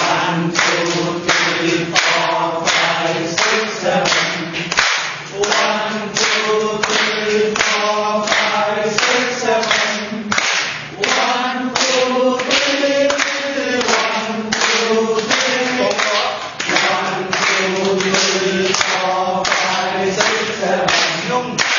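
A group of people clapping their hands in a steady rhythm, about two to three claps a second, while singing together in unison.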